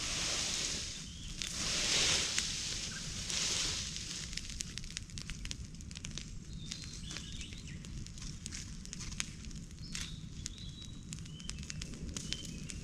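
Wood fire of freshly felled trees crackling with many sharp pops, with a few short high bird chirps. Three rustling swishes come in the first few seconds.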